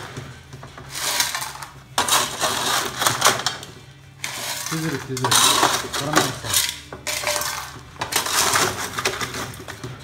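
Crushed stone being scraped with a metal scoop along a steel quartering cross and tabletop, gravel rattling and grinding against the metal, as a sample is split by quartering. About five scraping strokes, each one to two seconds long.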